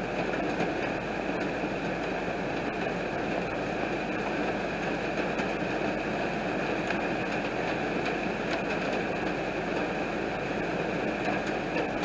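Heavy rain falling steadily, a dense even hiss with faint scattered ticks of drops.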